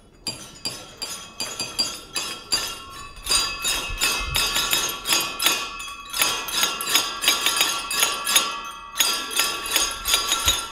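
Wine glasses tapped in a rhythm, each strike a bright ringing clink. A few single taps at first, then from about three seconds in many glasses tap along together in a dense, overlapping clinking.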